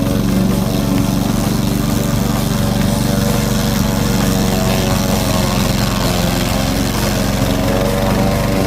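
Engine of a remote-controlled SKK 80 mower running steadily while it cuts overgrown weeds.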